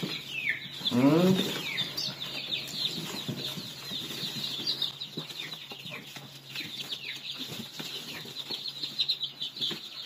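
Day-old chicks peeping continuously, a dense stream of short, high, falling cheeps, with rustling and soft handling sounds as they are set down one by one into a cloth-lined wicker basket. A brief voice sounds about a second in.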